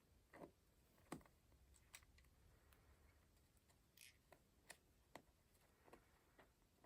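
Faint, irregular light taps and clicks, about one a second, from paper and craft materials being handled while a junk journal page is decorated.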